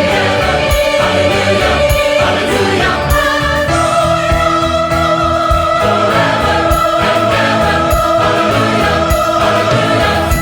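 Large choir singing with an orchestra, sustained chords over a steady beat, the harmony shifting about four seconds in.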